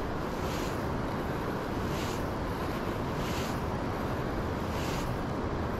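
Wind buffeting the microphone: a steady rushing noise, with soft hissy swells about every second and a half.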